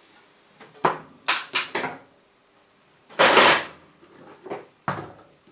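Hands handling a cassette deck's stripped transport mechanism and loose parts on a workbench: a few light clicks and knocks in the first two seconds, a louder noisy rush lasting about half a second a little past the middle, and two more knocks near the end.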